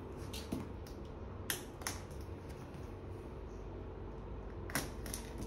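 A utility knife working at the packing tape and edge of a cardboard box: about four sharp clicks with light scraping and creaking of the cardboard in between, the loudest about a second and a half in and again near the end. A steady low hum runs underneath.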